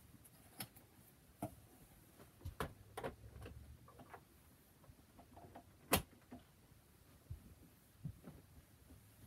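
Scattered soft clicks, knocks and rustling as the head of a life-size animatronic Santa figure is handled and fitted onto its body. One sharper click comes about six seconds in.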